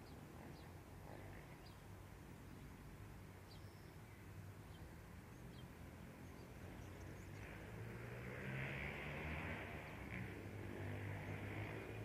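Faint outdoor background: a steady low rumble with a few faint, short, high chirps. About two-thirds of the way through, a louder rushing hiss with a hum rises and holds.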